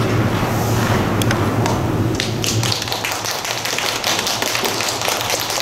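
Scattered handclaps from a small audience at the ice rink: many irregular sharp claps begin about two seconds in, after a low steady hum that stops about halfway through.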